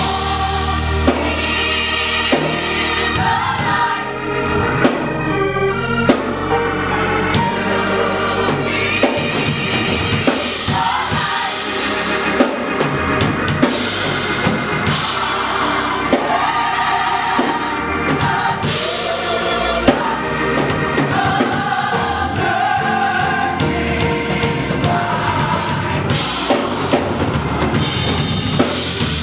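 Gospel choir singing with a drum kit keeping a steady beat.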